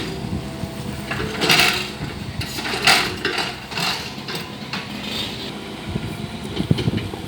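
Excavator diesel engine running steadily, with a few sharp knocks and scrapes from the machine at work.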